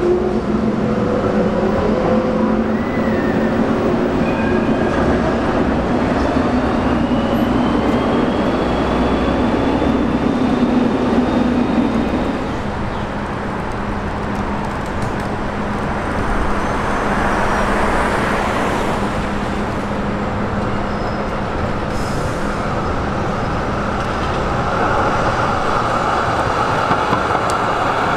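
Electric trams running past on a city street amid road traffic: a steady rumble with a low hum and a faint rising whine a few seconds in. The noise eases for a few seconds around the middle, then picks up again as another articulated tram passes close near the end.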